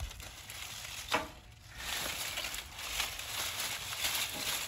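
Dry, brown-leaved cut branches rustling and crackling as they are handled in a heaped brush pile, with a single sharp click about a second in.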